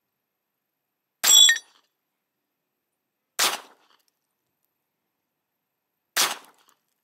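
Three pistol shots from a 1953 Romanian Tokarev firing 7.62×25mm rounds, spaced two to three seconds apart. The first is the loudest and carries a high metallic ring in its tail.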